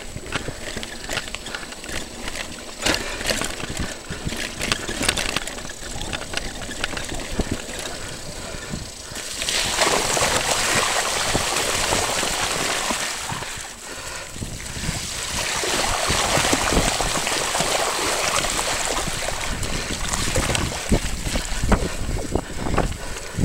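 Mountain bike rattling and clattering over a rough stony track, then its tyres splashing through standing puddle water from about ten seconds in, with a second longer spell of splashing a few seconds later.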